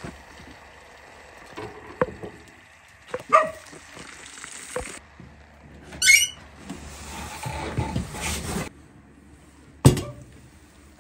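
Scattered clicks, knocks and clinks of hands handling metal cookware, with a brief wavering squeak about six seconds in and a sharp knock near the end.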